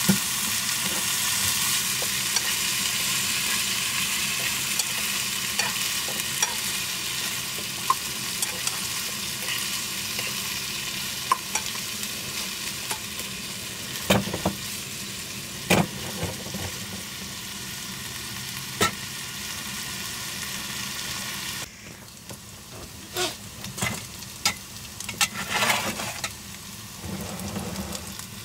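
Vegetables frying and sizzling in a pan over a gas canister stove, with a fork stirring and clinking against the pan. The sizzling drops off suddenly about three-quarters of the way through, leaving scattered clinks and scraping.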